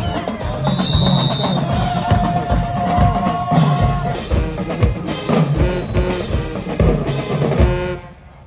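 Music with a steady, heavy drum beat and sustained melodic tones, which cuts off abruptly near the end.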